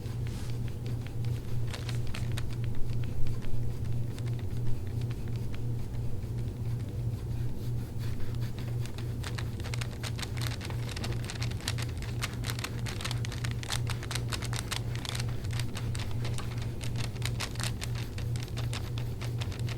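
Dense, soft crackling and rustling of hands working over a patient's back and the treatment table, growing busier in the second half, with a few louder knocks about three to five seconds in. A steady low hum runs underneath.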